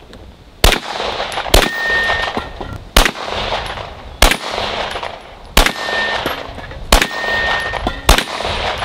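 Seven gunshots fired at an unhurried pace, roughly a second or so apart, at steel targets, with echo after each. Several shots are followed by a thin ring from struck steel.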